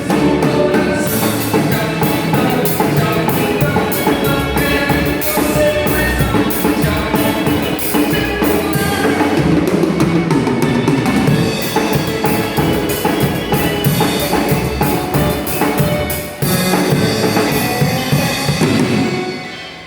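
Band music with a drum kit driving it, bass drum and snare with rimshots, under pitched instruments. There is a brief dip about three-quarters of the way through, and it fades out near the end.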